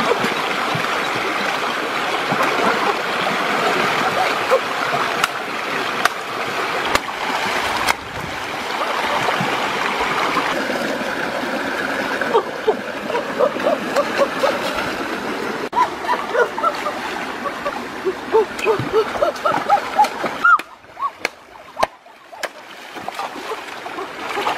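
Shallow rocky stream rushing, with splashing as hands thrash and grope in the water. Over the second half short vocal exclamations come through, and the water noise drops briefly near the end.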